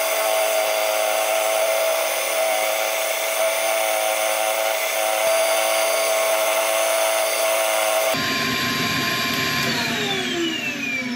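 Drill-driven sanding disc power-sanding an olive ash bowl as it spins on a wood lathe: a steady motor whine with a high hiss. About eight seconds in the sound changes to the lathe running on its own, and near the end its motor is switched off and winds down, the whine falling in pitch.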